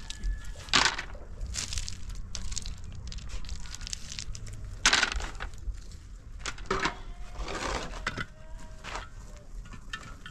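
Hand building work: irregular scraping and crunching strokes, with two loud sharp ones about a second in and about five seconds in.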